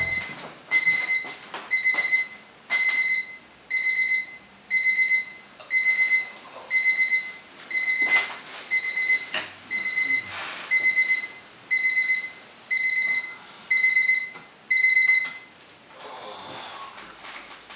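Electronic alarm clock beeping, one short high-pitched beep about every second, about fifteen in all, until it is switched off about fifteen seconds in.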